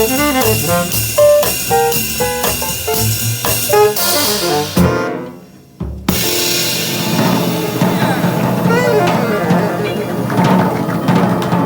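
Jazz band playing: a horn line over a drum kit fades out about five seconds in, and after a second of near silence a busier passage with drums and horns starts abruptly.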